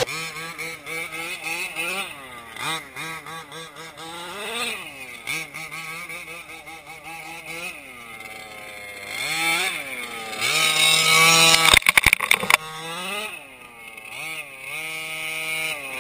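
HPI Baja 5T RC truck's two-stroke gas engine revving up and down over and over as the truck is driven on gravel. A quick run of sharp knocks comes about twelve seconds in, and the engine gets louder near the end as the truck comes right up close.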